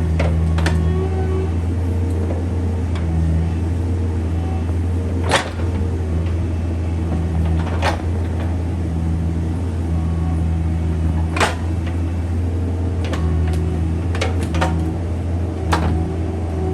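Bobcat 341D mini excavator's diesel engine running steadily, with sharp knocks every few seconds, the loudest about five and eleven seconds in.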